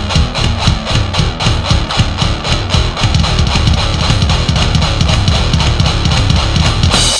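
Instrumental ending of a rock song: electric guitar, bass and drums playing a steady, fast beat, closing on a cymbal crash near the end that rings out.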